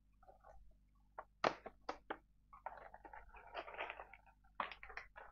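A product's packaging being handled and opened by hand: a few sharp clicks and taps, then about a second and a half of rustling, then a couple more clicks near the end.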